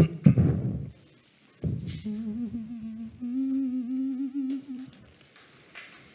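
A man humming two long held notes, the second a step higher than the first, after a brief loud sound at the very start.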